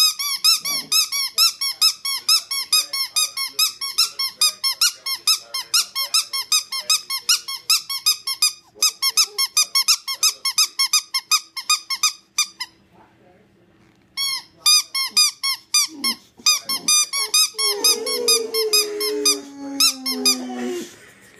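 Rubber squeaky toy squeezed over and over, about five squeaks a second, breaking off for a second or so near the middle before resuming. Boxer dogs answer with low, wavering cheek-puffing vocal sounds, clearest as a long wavering call near the end.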